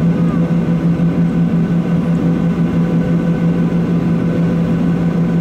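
Steady engine drone inside the cabin of a taxiing Boeing 737-800, its CFM56-7B turbofans running at low taxi power, with a constant low hum and no change in pitch.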